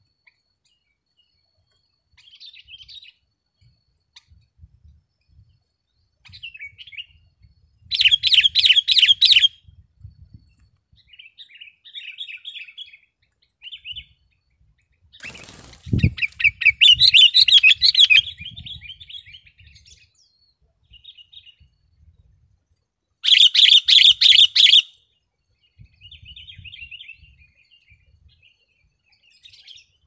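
Sooty-headed bulbul calling: a run of short song phrases and loud, rapid chattering bursts, three of them loudest, around a quarter, halfway and three-quarters of the way through. Near the middle comes a single low thump of its wings as it flaps on the branch.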